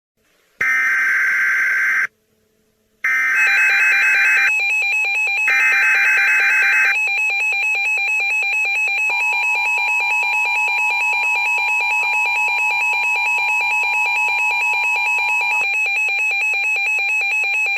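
Emergency Alert System alert signal: three short screeching digital header data bursts, followed by a loud, pulsing electronic attention tone that runs for about ten seconds and cuts off abruptly. It marks the start of a new warning message.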